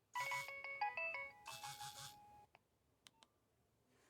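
A Nokia mobile phone's built-in short alert tone: a quick run of electronic chip notes lasting about two and a half seconds, with the phone's vibration buzzing along with it. A few sharp clicks follow about a second later.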